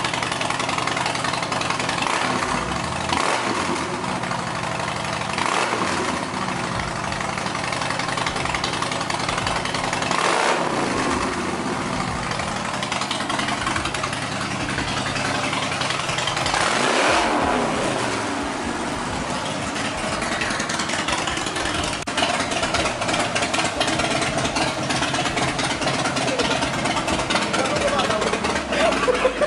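Harley-Davidson Breakout's V-twin engine running through a newly fitted aftermarket exhaust, idling between several throttle blips that rise and fall in pitch.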